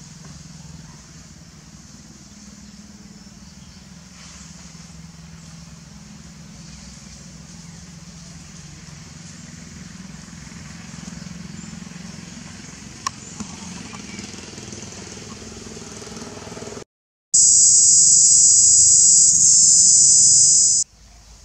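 Outdoor background with a steady low hum, like distant engines, and a single click about 13 seconds in. After a brief dropout, a loud, steady, high-pitched buzz starts abruptly and stops sharply just before the end.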